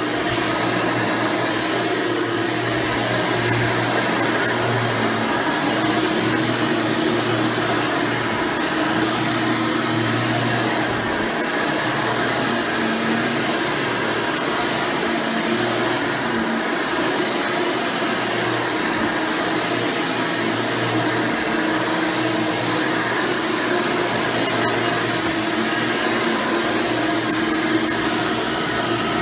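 Hoover Elite Supreme U5071-930 upright vacuum cleaner, with a 7-amp motor and a replacement 20-blade fan, running steadily as a continuous motor drone with a low hum.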